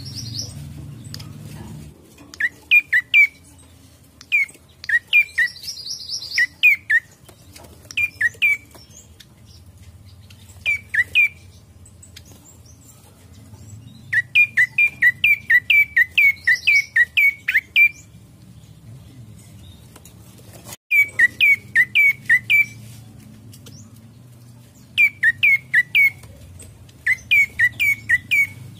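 Prenjak coki singing: runs of loud, sharp chirps, each a quick downward slur, from a few notes up to about a dozen in a row, with short pauses between runs. A few brief, higher buzzy phrases are mixed in.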